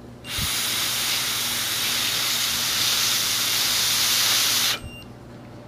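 A steady breath blown through an AccuMed breathalyzer's mouthpiece: a loud, even hiss for about four and a half seconds that cuts off abruptly. This is the breath sample for a blood-alcohol test.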